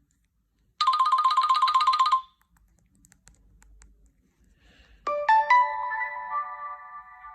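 Two short Nokia C2-01 phone tones in turn. First, a fast trill of rapidly repeated beeps, about a second and a half long. After a pause, a chime of a few quick bell-like notes that ring on and fade.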